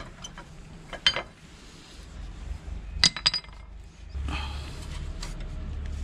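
Front brake pads being pulled out of a Chevrolet Beat's caliper bracket: a few sharp metallic clinks, with a quick cluster about three seconds in, as the steel pad backing plates knock against the bracket and its clips. A steady low rumble comes in about four seconds in.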